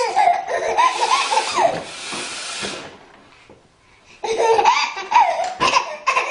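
A woman blowing her nose with a long, honking hiss for nearly three seconds, then after a second of quiet a baby bursting into a belly laugh.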